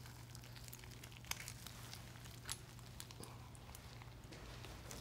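Faint scattered clicks and crinkling of a key ring with metal keys and trinkets being handled and drawn out by gloved hands, over a steady low hum.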